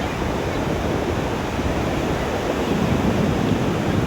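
Ocean surf washing on a sandy beach, a steady rushing wash of waves that swells toward the end, with wind buffeting the microphone.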